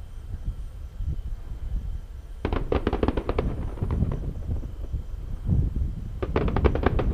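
Fireworks crackling in two quick volleys of many sharp cracks, one about two and a half seconds in and another near the end, over a low rumble.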